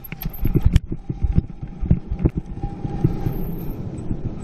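Mountain bike rolling fast down a bumpy dirt singletrack, heard from a camera riding on the bike. There is a continuous irregular rattling and thudding from the bike jolting over the rough ground, with a low rumble of wind on the microphone.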